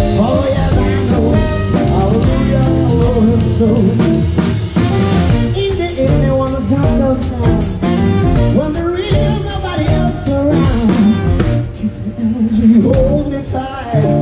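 Live band music, with a drum kit played with sticks close to the microphone under a sung vocal line.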